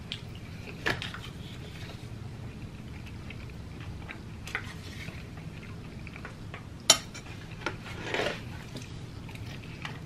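Metal fork clicking and scraping against plastic takeout containers during a meal: a few sharp clicks, the loudest about seven seconds in, and a short scrape just after eight seconds.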